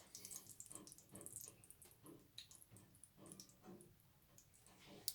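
Faint, scattered crackling and popping of hot frying oil in a skillet, with bologna frying in it.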